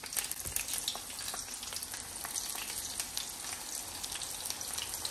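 Eggplant slices frying in hot oil: a steady sizzle full of small pops and crackles. The eggplant gives off a lot of water, and since the slices were not dried, the oil spits.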